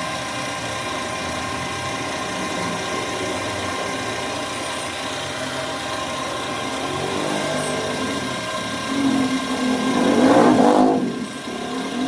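A power tool runs steadily, then gets louder and rougher for a couple of seconds near the end before easing off.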